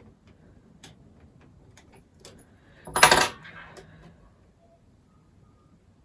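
Light clicks and taps of plastic laptop parts being handled, with one louder short clatter about three seconds in as the opened bottom cover is moved.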